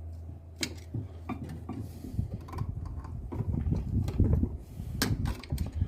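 Metal clicks and scraping of hand tools working at the brake caliper as a rust-stuck brake pad under spring tension is prised at. A low steady hum stops about two seconds in.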